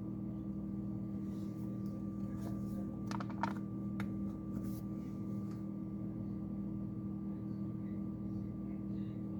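Steady electrical hum with a faint higher whine, and a few faint clicks about three to four seconds in.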